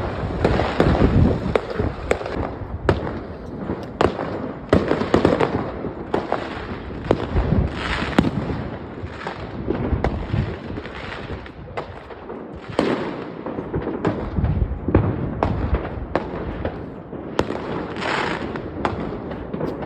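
Fireworks display: a rapid run of bangs from bursting shells mixed with dense crackling, some bursts louder than the rest.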